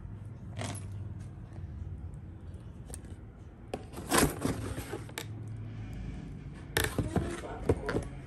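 A cardboard box and a handbag being handled by hand: sharp taps and clinks, loudest about four seconds in and again in a quick cluster around seven to eight seconds in, over a low steady hum.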